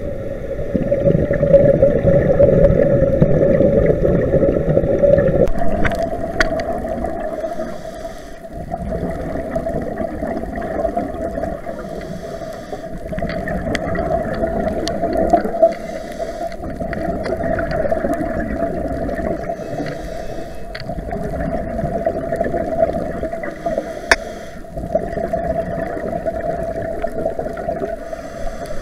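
Underwater ambience picked up by a diving camera: a steady low rush and hum of the water, with a scuba regulator's breathing hiss and bubbles about every four seconds and a few sharp clicks. The background changes abruptly about five seconds in.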